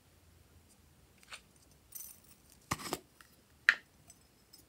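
A few light clicks and clinks from a plastic bottle being handled over a glass dish of slime, with a short rattle near the middle and the loudest, sharpest click about three and a half seconds in.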